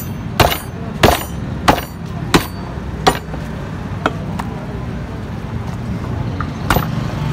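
Meat cleaver chopping through beef ribs on a wooden chopping block. Five heavy chops come about two-thirds of a second apart, followed by a couple of lighter knocks and two more chops near the end.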